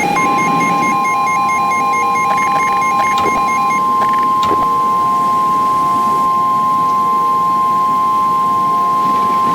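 NOAA Weather Radio warning alarm tone: one steady high tone held for about ten seconds, the alert signal that comes before a new warning. For the first four seconds or so, a rapid on-off beeping runs underneath it.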